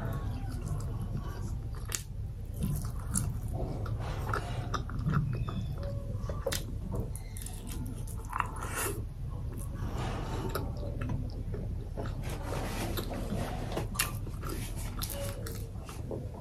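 A person biting and chewing buckwheat flatbread (fapar roti), with many irregular mouth clicks as she chews.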